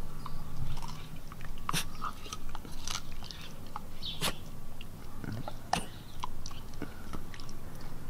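A husky biting and chewing raw broccoli held out by hand, with irregular sharp crunches.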